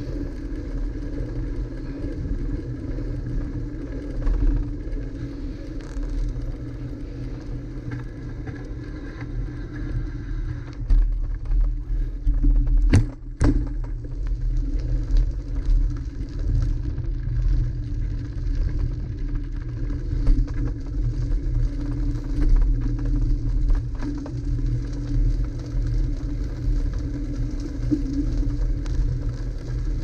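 Steady rumble of a bicycle ride recorded on a handlebar action camera: wind buffeting the microphone and tyres running on the paved bike path. A single sharp knock comes near the middle.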